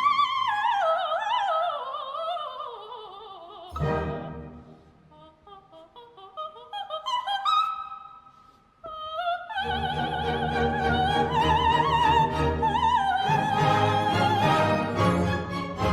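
Soprano singing a coloratura opera aria with orchestra, her voice wavering with vibrato as it runs steadily downward. The orchestra comes in about four seconds in and gives way to a quieter, choppier passage. From about ten seconds in, the full orchestra plays under her high, held singing.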